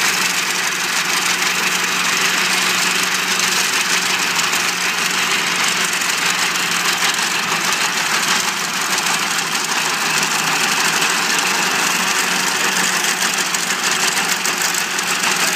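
Case 930 tractor engine running steadily while pulling an MF41 sickle mower, mixed with the fast rattle of the mower's reciprocating knife cutting grass and clover.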